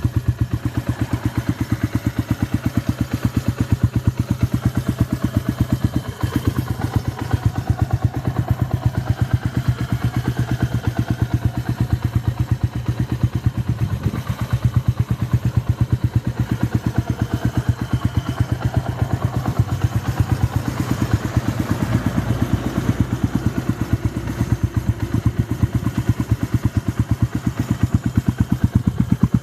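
Lexmoto Adrenaline 125 motorcycle idling through an aftermarket Lextech hexagonal exhaust, a steady even pulsing.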